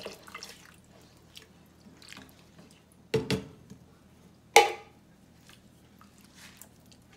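Evaporated milk dripping and running from a tipped can into a pot of cooking rice, tailing off. A soft double knock comes about three seconds in, then a single sharp knock, the loudest sound, about a second later.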